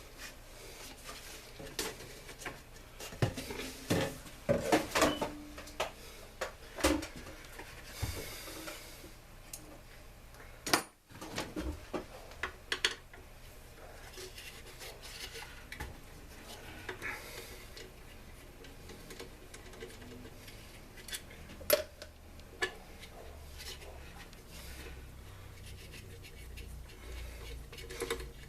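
Scattered clicks, taps and metallic clinks of hand tools and blower parts being handled during disassembly, with a few sharper knocks, the loudest about eleven seconds in.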